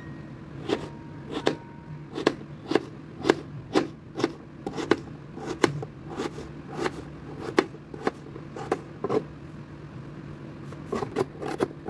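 Kitchen knife chopping carrots into strips on a plastic chopping board: sharp strokes about two a second, a short pause, then quicker strokes near the end, over a steady low hum.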